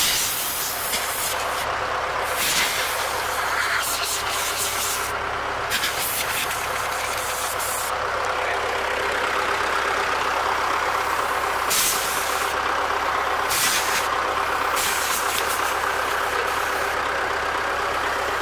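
Compressed-air blow gun hissing steadily as it blasts packed dirt out of a clogged radiator core, with short louder spurts every second or few as the trigger is opened wider. A steady engine hum runs underneath.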